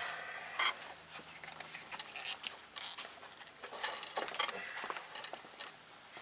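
Faint scattered clicks and rustles of hands working the rubber boot back on a VW Mk2 steering rack, with a few sharper ticks.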